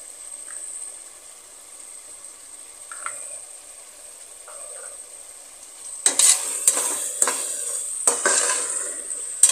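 Onion-tomato masala sizzling in oil in a pressure cooker, faint and steady at first. About six seconds in, a slotted metal ladle starts stirring it, scraping and knocking against the pot in quick, loud strokes.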